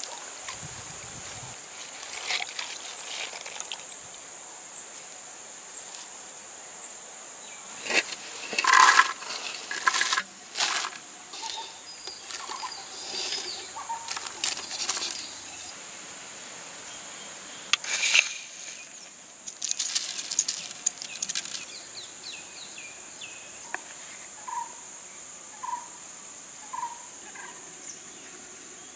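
Hands handling and tipping chopped shallots and green chillies into a clay cooking pot, heard as two spells of rustling and clattering, over a steady high-pitched insect chirring.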